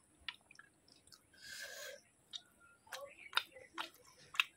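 A person chewing a mouthful of food close to the microphone, with scattered wet clicks and smacks and a short noisy slurp or rustle about a second and a half in.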